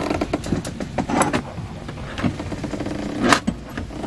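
Knocks and clicks of parts being handled on a metal antenna mounting bracket: a few light ones, then a sharper knock about three seconds in, over a low steady rumble.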